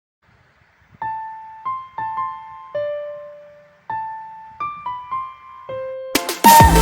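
Background music: a simple melody of single, slowly decaying piano-like notes, then about six seconds in a loud electronic track with heavy bass cuts in.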